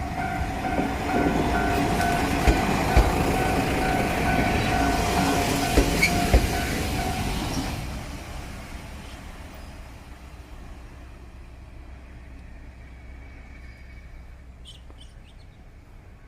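Kanto Railway Ryugasaki Line diesel railcar rolling slowly over the station level crossing, its wheels knocking four times in two pairs over the rail joints, while the crossing alarm rings. The alarm stops suddenly about eight seconds in, leaving the quieter running of the railcar.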